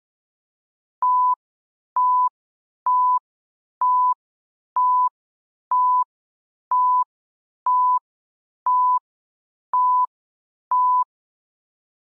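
Countdown-timer beeps: eleven short beeps, all at the same pitch, about one a second, counting down to zero.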